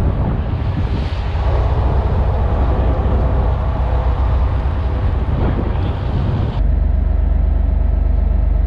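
Boat's Detroit Diesel Series 60 inline-six running steadily under way, a deep low hum with water rushing along the hull. About two-thirds of the way through, the sound cuts abruptly to a steadier engine drone without the rush of water.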